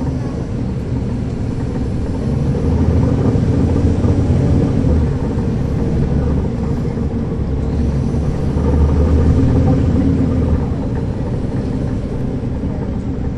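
Caterpillar C13 ACERT diesel engine of a NABI 40-SFW transit bus, heard from the rear seat inside the bus, running under way. It grows louder about two and a half seconds in, eases off around the middle, swells again a little later and drops back near the end.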